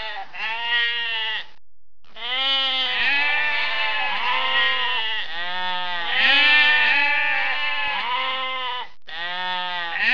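Sheep and lambs bleating, several voices overlapping in a near-continuous chorus of wavering calls, broken by a short gap after about a second and a half.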